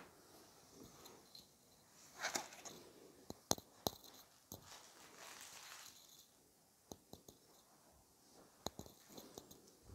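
Faint rustling and a scattered handful of sharp clicks, the handling noise of a handheld phone being carried and turned.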